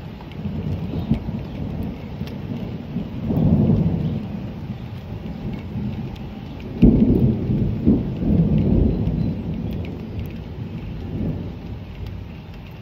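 Thunder rumbling over steady rain: a low roll swells about three seconds in, and a louder one breaks suddenly about seven seconds in and rolls on for a few seconds.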